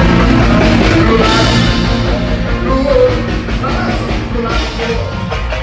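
Live band music played loud through a stage sound system, with a voice singing.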